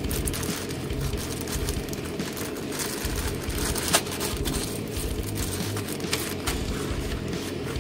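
Clear plastic bags holding Mini 4WD kit parts crinkling and rustling as they are handled and opened, with a sharp click about four seconds in.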